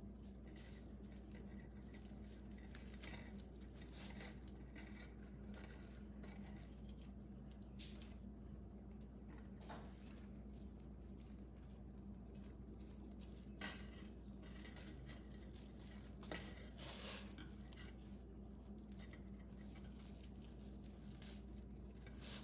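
Thin metal bangles clinking and jingling against each other as they are handled and tied into sets. The clinks are scattered and soft, and the sharpest one, with a brief metallic ring, comes a little past the middle.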